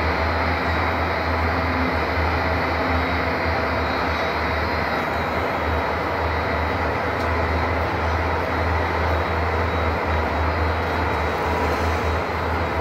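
A 600-ton hydraulic press's power unit running: a steady low drone with an even hiss above it, unchanging throughout.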